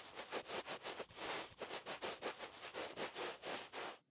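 A towel rubbed in quick, even strokes, about five a second, as if drying someone off, stopping just before the end.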